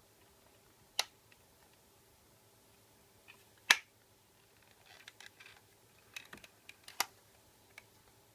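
Sharp plastic clicks and handling sounds as an LED flashlight's plastic housing is put back together: three loud single clicks, with a run of smaller clicks and rustling in between.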